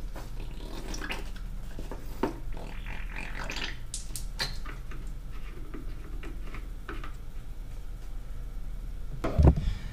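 Small clicks, squelches and handling noises as a tube of tilt-trim hydraulic fluid is squeezed into the power tilt-trim unit's reservoir, over a steady low hum, with a louder thump near the end.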